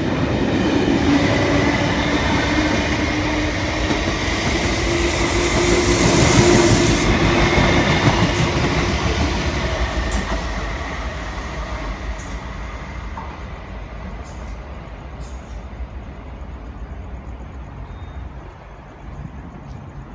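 An MTR East Rail line electric train running through the station without stopping: a loud rush with a steady whine, loudest about six seconds in, then fading away as the train leaves, with a few sharp clicks as it dies down.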